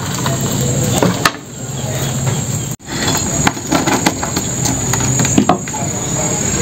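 Light metallic clinks and rattles of a collapsible wire-mesh crab trap being handled, over a steady low hum.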